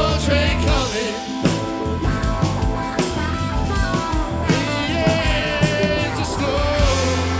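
Live rock band playing: electric guitar, keyboards, bass guitar and drums together, with a melody line bending over the top and regular drum hits.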